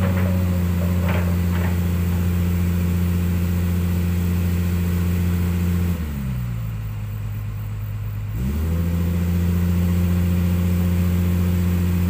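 Hydraulic excavator's diesel engine running steadily at high revs. About six seconds in it drops to a lower speed, then revs back up about two and a half seconds later.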